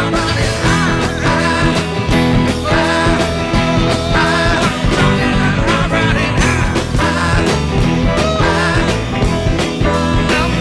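Rock music with guitar, a steady beat and singing.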